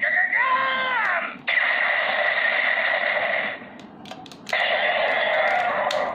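DX Gaburevolver toy changer playing electronic sound effects through its small built-in speaker: a falling, warbling sweep, then two long sustained effects. Between the two long effects come a few sharp clicks from the toy's mechanism.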